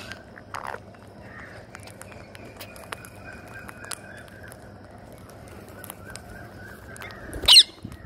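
Rose-ringed parakeets feeding on scattered rice, their beaks making a scatter of small pecking clicks. A short bird call comes about half a second in, and a loud, shrill, wavering bird call comes near the end.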